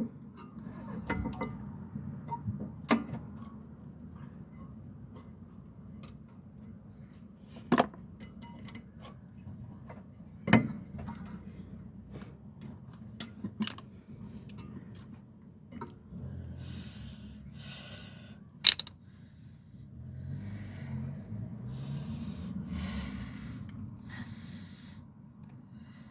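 Metal tools and brake parts clinking and knocking as they are handled during a rear brake-pad job, over a low steady hum. There are sharp knocks about 8 and 10 seconds in and another near 19 seconds, and several short spells of hissing in the last third.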